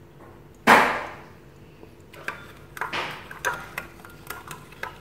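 One sharp knock about a second in, then a metal spoon clinking and scraping against a ceramic bowl in light, irregular taps as seasonings and soy sauce are stirred together.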